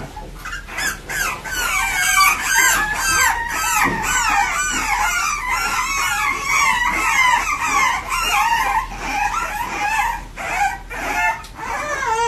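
A litter of French bulldog puppies yipping and whining together: many short, overlapping cries with no break between them.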